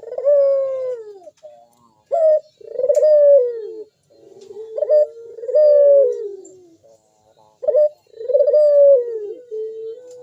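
A local puter dove cooing (manggung) vigorously: repeated drawn-out coo phrases, each starting higher and sliding down in pitch, with short pauses between them.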